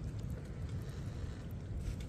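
Steady low wind rumble on the microphone, with a faint soft click near the end.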